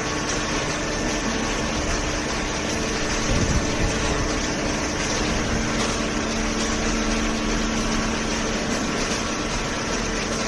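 Hydraulic paper baler's power unit running: a steady mechanical hum with a few held tones over a noisy wash. A new tone joins about halfway through.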